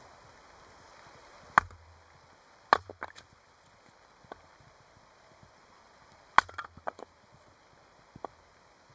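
Hatchet splitting firewood on a log chopping block: several sharp chops at uneven intervals, the loudest about one and a half, three and six and a half seconds in, some followed by lighter knocks of split pieces falling, with a couple of softer taps between.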